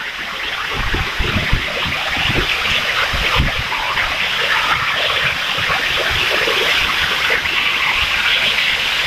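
Loud, steady rush of rainwater, growing louder over the first second or so, with a few low thuds in the first few seconds.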